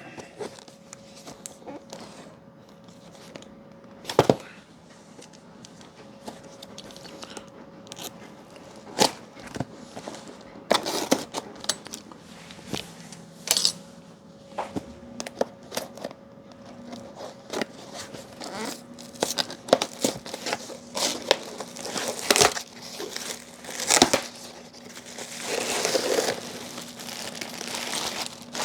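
A parcel being unpacked by hand: packing material crinkling and tearing, with scattered knocks and clicks as the box and its contents are handled.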